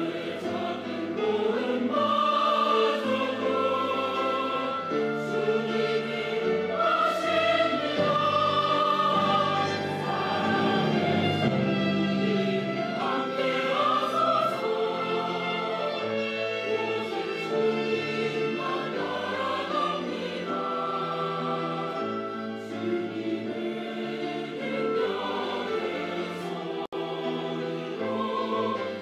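Mixed church choir of men and women singing a hymn anthem in Korean in harmony, with accompaniment, in sustained, flowing phrases.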